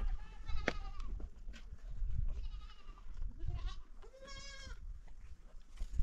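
Goats bleating several times, each call short with a quavering pitch; the clearest and loudest comes about four seconds in.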